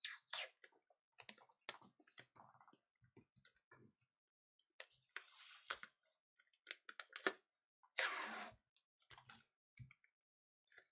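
Adhesive tape being pulled off the roll and laid over a cracked tablet screen: two longer tearing rasps about five and eight seconds in, among light clicks and taps of handling.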